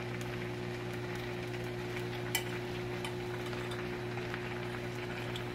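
Microwave oven running with a steady hum, while candy melting inside sizzles and crackles with scattered faint pops. The clearest pop comes about halfway through.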